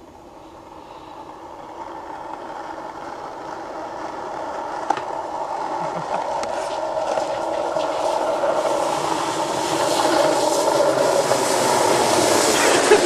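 Skateboard wheels rolling on rough asphalt: a steady rumble that grows gradually louder as the board comes closer, with a single click about five seconds in.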